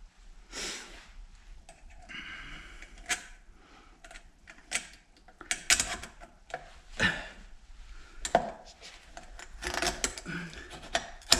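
Small steel spring leaves and a screwdriver clicking and tapping against a Jaguar E-Type trunk hinge as a spring leaf is worked into place. The clicks come irregularly, with a couple of brief scraping sounds, and grow busier in the second half.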